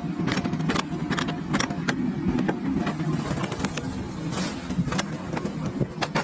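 Engine of a tree-cutting machine running steadily, with many irregular sharp clicks and knocks over it.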